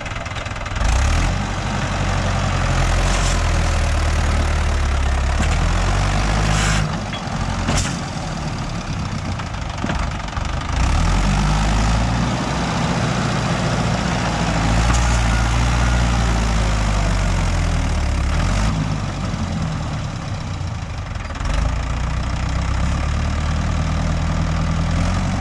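Mahindra 585 XP tractor's four-cylinder diesel engine working under load as it pulls a loaded trolley. The engine note rises and falls with the throttle, and it gets louder about a second in, again around eleven seconds and again near twenty-one seconds. A few sharp knocks sound in the first eight seconds.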